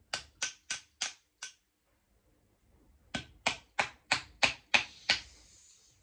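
A hammer tapping on the top of a glass marble-stopper soda bottle to force the marble seal down: five quick taps, a pause, then seven more, followed by a faint hiss.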